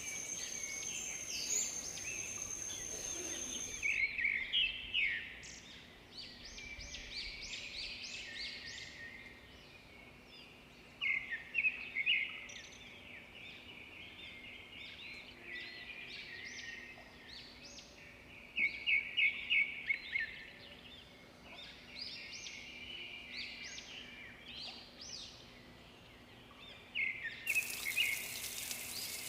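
Songbirds singing in the wild: a run of short, high chirping phrases, with a few louder bursts of rapid repeated notes. A steady high buzz, like insects, accompanies the first few seconds and stops abruptly, and a steady hiss comes in near the end.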